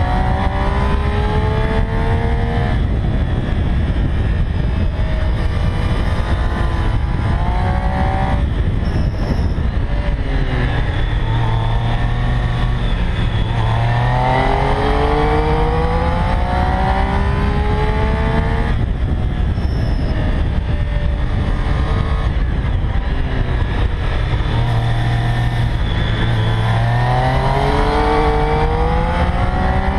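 Triumph Street Triple R's 675 cc inline-three engine under way, its pitch climbing repeatedly as it accelerates out of bends and falling away when the throttle is eased, with heavy wind rush on the bike-mounted microphone.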